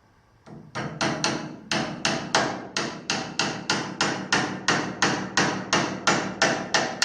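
Hammer blows tapping the saw assembly over, a steady series of about three sharp strikes a second, knocking it back into alignment with the table groove.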